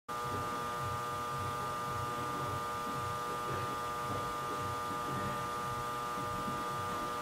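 Steady electrical hum and buzz, with many fixed tones layered together, that starts abruptly right at the start and holds unchanged.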